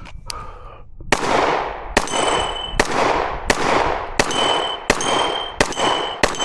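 A 1911 Commander pistol in .45 ACP firing a string of single shots, about one every 0.7 s, eight in all. Several of the shots are followed by the brief ringing clang of a hit steel target.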